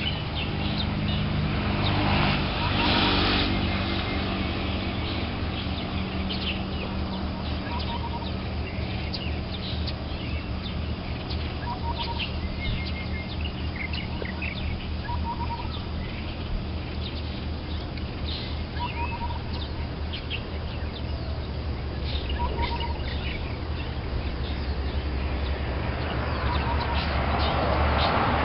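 Birds chirping, with many short high chirps and one short lower call repeating every three to four seconds, over a steady low rumble. A louder rushing noise builds near the end.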